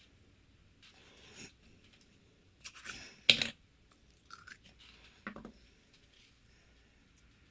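Slime being handled: a few short, irregular bursts of sticky, crackly noise, the loudest a sharp one about halfway through.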